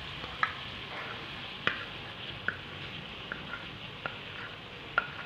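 Melted margarine sizzling steadily in a pan as sweetened condensed milk is poured into it, with a handful of sharp clicks scattered through the hiss.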